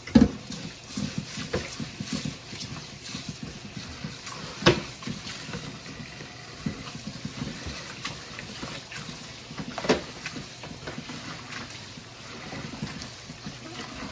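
About 4 cups of rice being washed by hand in a pot of water: wet grains swished and rubbed to rinse out the starch, with three sharp knocks against the pot, at the start, about a third of the way in and about two thirds in.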